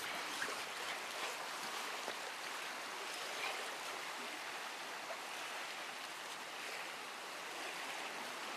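Sea water washing gently against breakwater rocks and concrete tetrapods, as a steady, soft wash of water.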